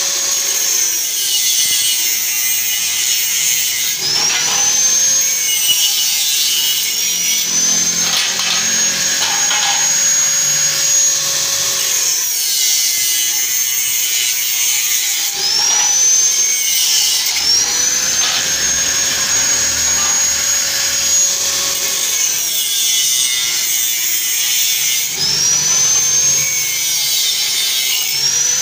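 Handheld angle grinder with a cut-off disc running continuously while cutting hollow square steel tube. Its high whine repeatedly dips in pitch as the disc bites into the metal and climbs back as each cut finishes, several cuts in a row.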